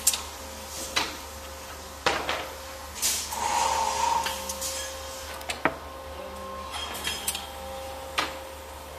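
Pneumatic semi-automatic screen printing machine with a vertical sliding table cycling: a handful of sharp clacks from its air cylinders and sliding table, with a burst of air hiss about three seconds in, over a steady faint hum.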